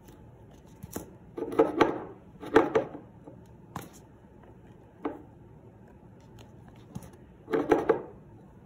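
Short clusters of knocks and clatter from a glass measuring jug and a cardboard box of bicarb soda being handled on a kitchen counter while powder is measured out, with a few single taps between them.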